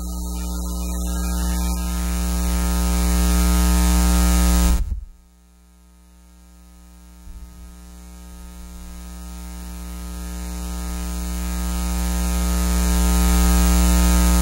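Loud electrical mains hum with a buzzing stack of overtones and hiss from the church's sound system. It swells gradually, drops off suddenly with a click about five seconds in, then builds back up.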